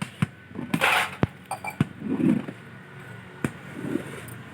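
Scattered clinks and knocks of metal utensils and dishes, with a short hissing burst about a second in.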